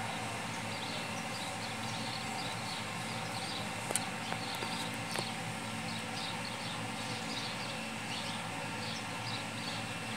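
Outdoor background of steady hiss with many short, high chirps from small birds repeating throughout, and a sharp click about four seconds in.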